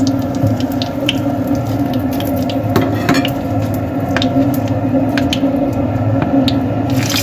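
Hot oil sizzling in a frying pan, with many scattered small pops and clicks over a steady low hum. Just before the end a louder, brighter hiss sets in.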